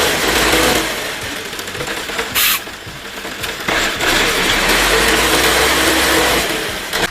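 Heavy vehicle's engine running hard under load, loudest in two long stretches, with a short hiss about two and a half seconds in.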